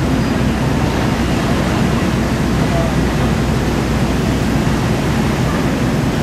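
Steady, loud roar at a large burning warehouse fire, with a constant low rumble underneath and no breaks.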